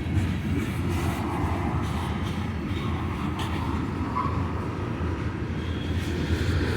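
Freight cars of a slow-moving freight train rolling past: a steady low rumble with faint light clicks from the wheels.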